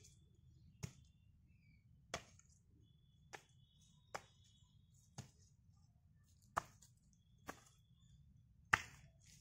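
Hand hoe striking and breaking up dry, lumpy soil: eight sharp chopping blows, about one a second.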